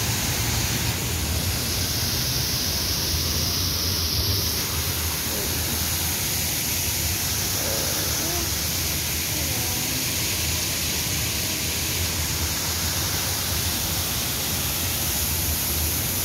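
Fountain jets splashing, a steady rush of falling water.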